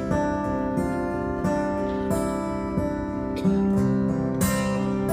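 Acoustic guitar strummed steadily in an instrumental break between sung lines, with no vocals.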